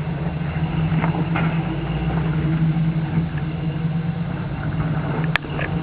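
Jeep Scrambler engine running steadily at an even pitch while rock crawling, with one sharp click or knock near the end.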